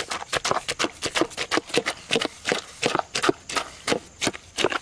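A rapid, fairly regular run of short knocks, about three to four a second.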